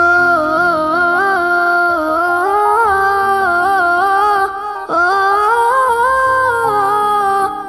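Music: a wordless hummed vocal melody in two long phrases with small ornamental turns, over a soft low backing.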